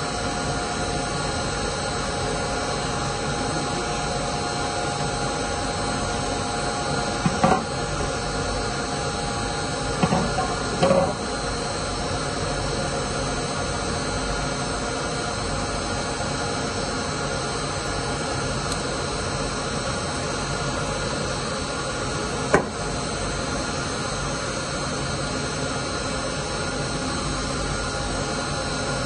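A steady, loud mechanical hum with a whooshing noise underneath runs throughout. Small parts knock a few times: once about seven seconds in, twice around ten to eleven seconds, and a single sharp click a little past twenty-two seconds.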